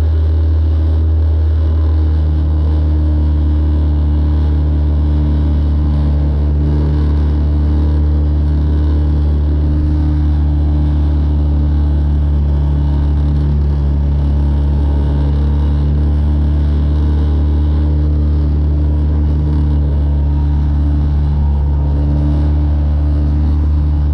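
Small Mercury outboard motor running steadily under way, pushing a small open boat along at speed.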